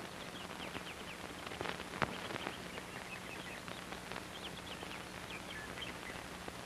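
Crockery set down on a table: a sharp knock at the start and another about two seconds in, with a few lighter knocks between. Under it runs the steady hiss and hum of an old film soundtrack, with faint high chirps.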